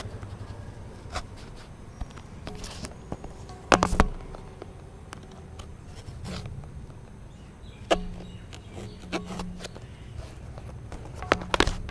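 Small blade cutting the seal along the edges of a cardboard tablet box: brief scraping strokes with scattered clicks and knocks of the box and blade on the table, the loudest about four seconds in and near the end.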